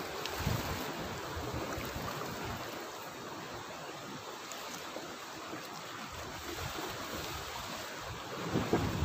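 Choppy sea washing against the rocks of a breakwater, a steady rushing noise, with wind buffeting the microphone in gusts, strongest near the end.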